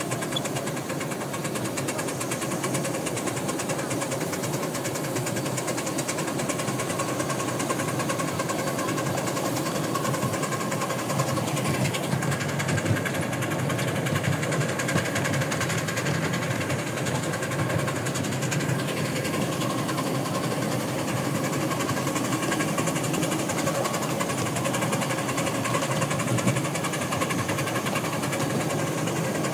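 Miniature steam locomotive working a passenger train: its exhaust chuffs fast and steadily, mixed with the rattle of wheels on the track.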